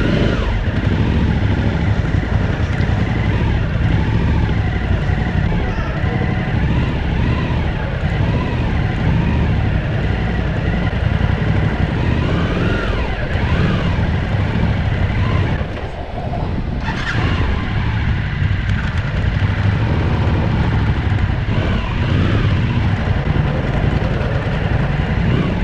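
Motorcycle engine revving up and down as the heavily loaded bike labours at low speed through deep sand. The engine eases off briefly about two-thirds of the way through.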